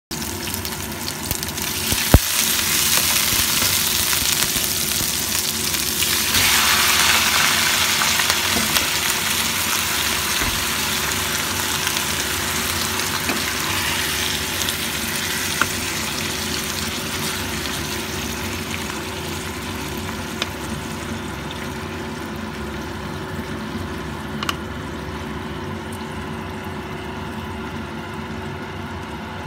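Garlic and onions sizzling in hot oil in a stainless steel pot, the sizzle growing louder about six seconds in as chicken and pork pieces go into the pan, then slowly dying down as the meat cooks. A few sharp knocks of the wooden spatula against the pot.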